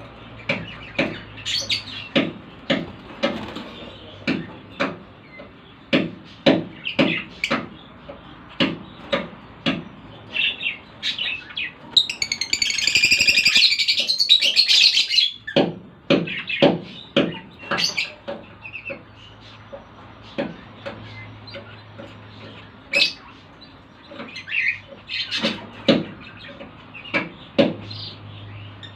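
Lovebirds chirping: a steady run of short, sharp chirps, with a louder burst of shrill chatter lasting about three seconds near the middle.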